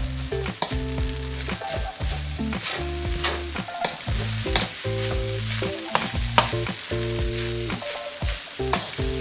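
Metal spatula scraping and clanking against a stainless steel wok as fried rice is stir-fried in butter, with the rice sizzling. The clanks come irregularly, about one or two a second, over a steady sizzle and a layer of steady low tones.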